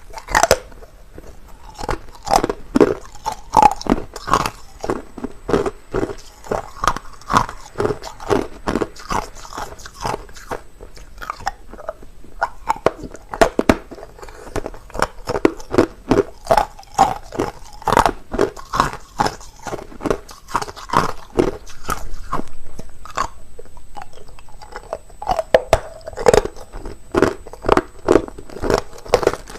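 Clear, hard crushed ice being bitten and chewed close to the microphone: a rapid, irregular run of sharp, loud crunches, with a brief spell of steadier grinding about three-quarters of the way through.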